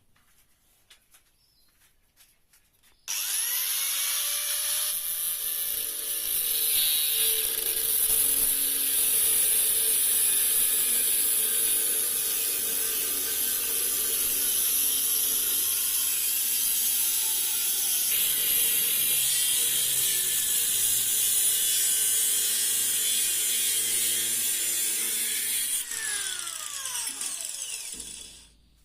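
An electric power tool spins up about three seconds in, runs steadily with a loud, hissing, abrasive noise for over twenty seconds, then winds down and stops near the end.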